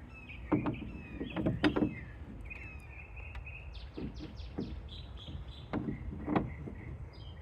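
Scattered knocks, clicks and rattles of a broken-off shed door handle being handled and fitted against the shed door, in several short clusters.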